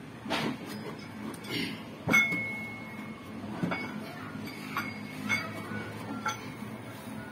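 Metal dumbbell plates clinking and knocking as the dumbbells are lifted and curled. A scattering of short clinks includes one sharp clink about two seconds in that rings on for about a second.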